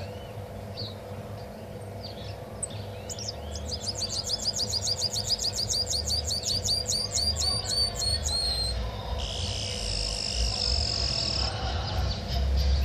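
A caged yellow finch singing its machine-gun song: a few scattered chirps, then a fast run of repeated downward-sweeping notes, about six a second, for some five seconds, followed by a buzzy trill of about two seconds. A low steady hum runs underneath.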